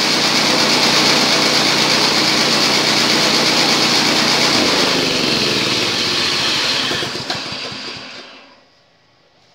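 Chaff cutter driven by a small single-cylinder petrol engine running at speed, then shut off about halfway through: the engine and cutter wind down with falling pitch, a small knock near the end, and stop about a second before the end.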